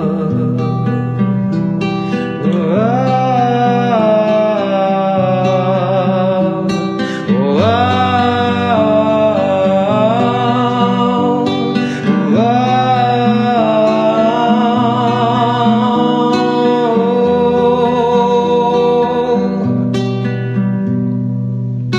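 Acoustic music: a sung melody with vibrato and sliding rises in pitch over acoustic guitar chords, with the guitar plucked more sharply near the end.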